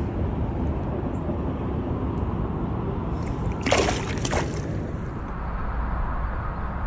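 A largemouth bass let go by hand into the river, a short burst of splashing about four seconds in as it hits the water and kicks away.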